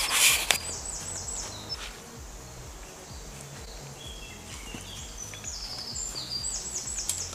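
A songbird singing two phrases of quick, high repeated notes, the second longer and stepping down in pitch near the end. Underneath are footsteps on a woodland path, and at the very start a brief loud rustle, like brush or gear rubbing the microphone.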